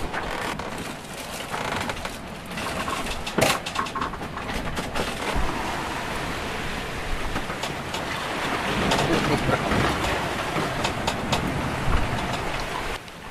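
Steady rushing wind and water noise aboard a sailboat under way, with scattered light clicks.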